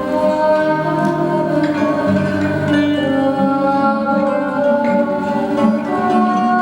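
Music: a slow melody of sustained tones over plucked-string accompaniment, possibly with wordless voices.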